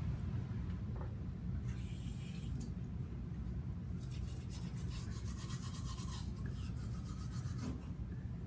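Manual toothbrush scrubbing teeth in rapid back-and-forth strokes, starting a couple of seconds in, over a steady low hum.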